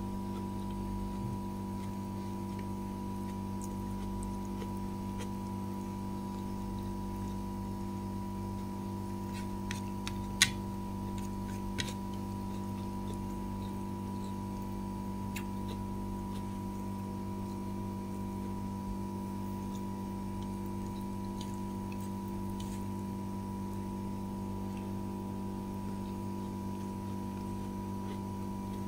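A steady low hum with several overtones, with a few sharp clicks; the loudest click comes about ten seconds in and a smaller one a second later.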